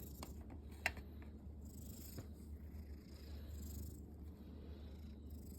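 Domestic cat purring steadily, close by, with a single short click about a second in.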